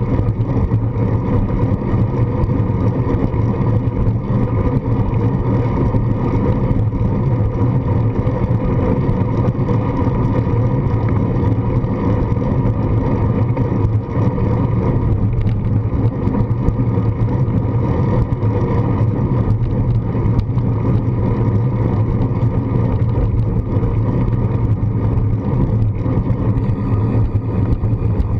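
Wind and road noise picked up by a handlebar-mounted GoPro on a moving bicycle: a steady low rumble from tyre vibration on rough asphalt carried through the handlebar, mixed with wind over the camera housing.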